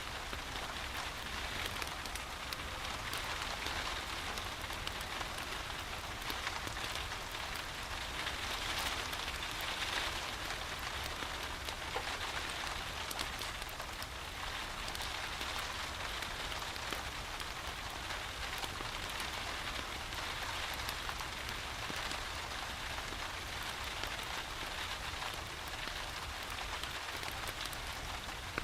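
Steady rain falling, a continuous hiss dotted with many small drop ticks, over a low rumble.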